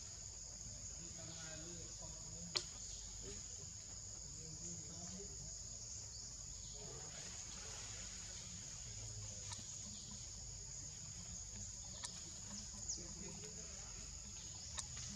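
Steady high-pitched drone of insects such as crickets or cicadas in forest, with faint voices in the background. A single sharp click about two and a half seconds in, and a few fainter clicks later.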